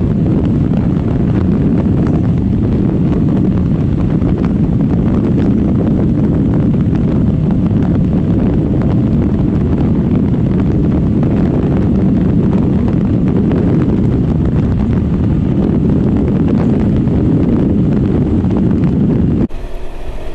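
Heavy wind buffeting on the microphone of a motorcycle ridden at speed, with engine and road noise under it. Near the end it cuts to a quieter, clearer engine-and-road sound.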